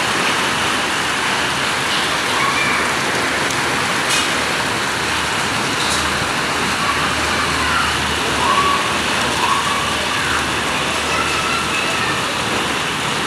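Very heavy hail falling with rain, a dense, steady hiss and clatter of stones striking the building and ground.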